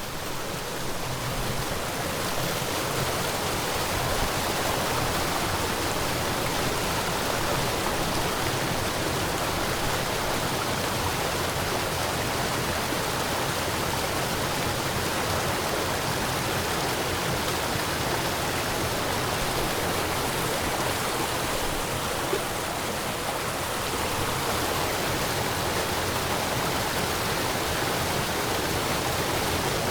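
Small waterfall rushing steadily, water splashing and pouring without a break.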